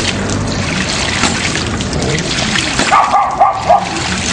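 Water rushing and spurting from the snifter valve of a running Life 4 Water RP75 hydraulic ram pump. About three seconds in, a quick run of short high yelps starts, louder than the water.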